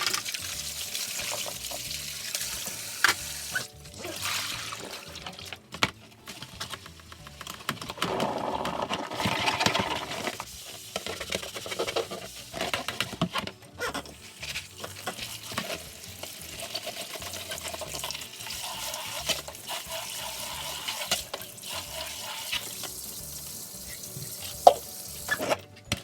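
Kitchen tap running into a sink while dishes are washed, with a few sharp knocks of dishes against each other or the sink.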